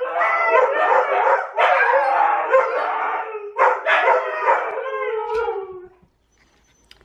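Huskies howling together: several overlapping, wavering howls with a few short yips mixed in, dying away about six seconds in.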